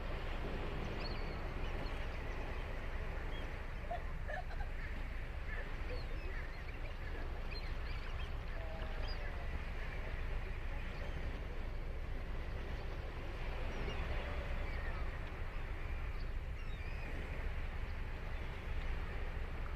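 Steady wash of ocean surf on a sand beach, with scattered short bird calls through it.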